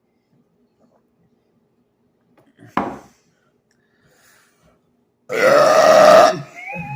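A man's loud, deliberate burp lasting about a second, starting about five seconds in, with a short, fainter sound near three seconds before it.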